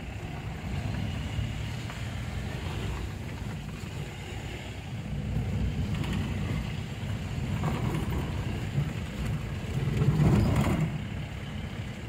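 A car driving along a road: steady low engine and road rumble that rises and falls, swelling louder for about a second near the end.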